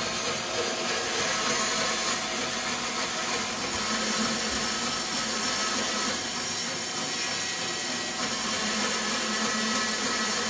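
Bandsaw running with its blade cutting a groove around the rubber outer layer of a Tesla Model 3/Y strut top hat as the part is turned by hand, giving a steady, even hiss.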